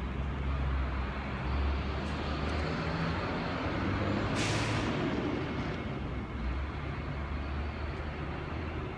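Street traffic: a heavy truck's engine rumbling steadily, with one sudden loud hiss of air brakes releasing about four seconds in that fades over a second.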